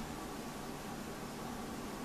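Steady, even background hiss with a faint low hum, and no bird calls or pecking.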